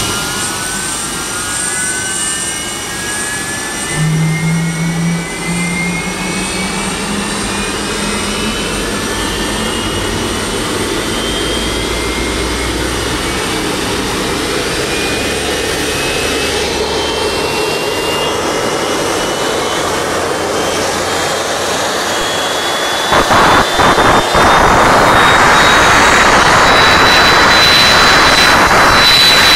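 Turbofan jet engine of a four-engine airliner spooling up on a ground run, its bleed-air pressure-regulating and shutoff valve (PRSOV) opened by hand: a high whine rises steadily in pitch throughout. About 23 s in, a much louder rushing roar comes in.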